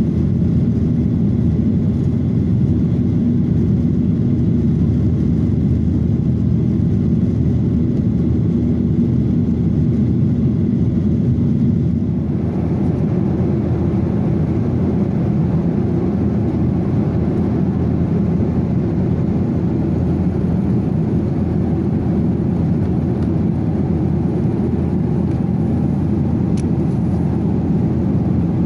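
Steady in-flight cabin noise of a Boeing 737-800 jet airliner: engine drone and airflow rush heard from a window seat. About twelve seconds in the tone shifts, with less low drone and more hiss.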